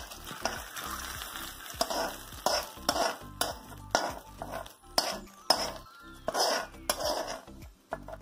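Hot oil tempering of mustard seeds, cumin and curry leaves is scraped with a metal spoon from an iron kadai into a steel pot of spiced buttermilk. There is a run of spoon scrapes and knocks on metal, with sizzling as the hot oil meets the liquid.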